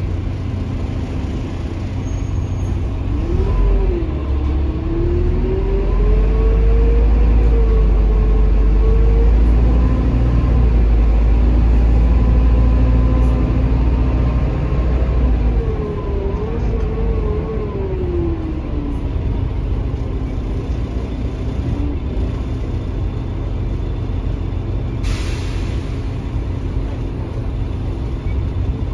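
Mercedes-Benz OH1830LE bus heard from inside the saloon: its OM926 diesel engine and automatic gearbox pull away with a heavy rumble and a whine that rises in pitch, then the whine rises and falls again as the bus slows. A short burst of air hiss comes about 25 seconds in.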